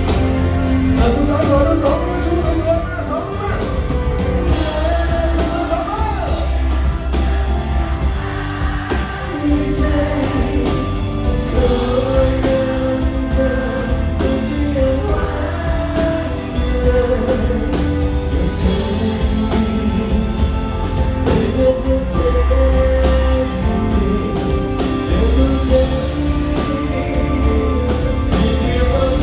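Live band performance: a male singer singing into a microphone over drums, keyboard and heavy bass.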